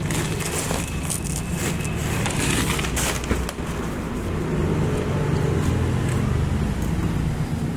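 A vehicle engine running steadily with a low hum, with scattered clicks and rustling over it.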